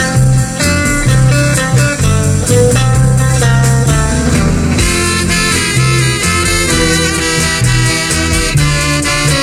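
Instrumental music with plucked bass notes and guitar. The sound gets fuller and brighter about five seconds in.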